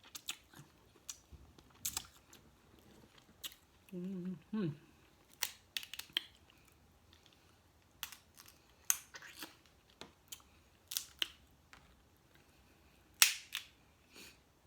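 Snow crab leg shells being cracked and snapped open by hand: scattered sharp cracks, the loudest near the end.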